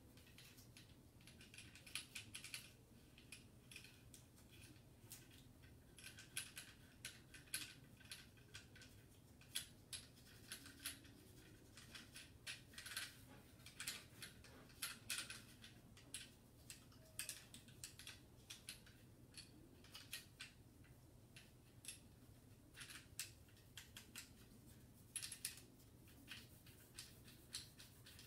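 Faint, irregular rubbing and light clicks of gloved hands and a cleaning pad wiping down the outside of a Springfield Hellcat pistol.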